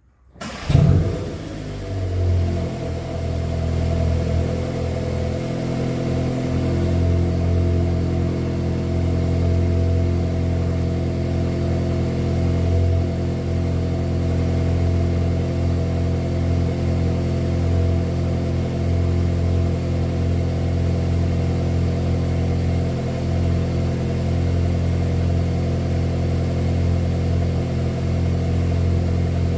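A stock Volkswagen Golf 8 GTI's 2.0-litre turbocharged four-cylinder is cold-started. It catches within a second with a short loud rev flare, then settles into a steady, even fast idle on the stock exhaust.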